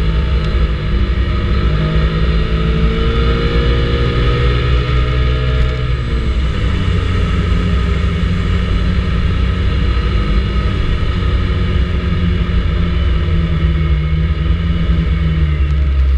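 Vespa GTS 300 ie scooter's single-cylinder four-stroke engine on the road, its pitch rising steadily for about five seconds as it pulls, dropping sharply around six seconds in as the throttle eases, then running steady. Heavy low wind rumble on the helmet- or bike-mounted action-camera microphone.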